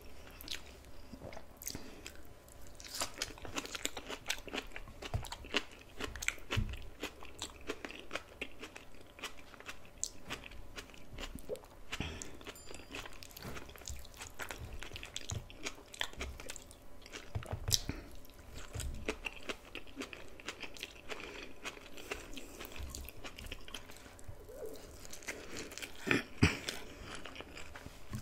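Close-miked ASMR eating of a meal of fries, bok choy, rice and jack mackerel in tomato sauce: steady chewing and biting with many sharp mouth clicks, and a couple of louder bites partway through and near the end.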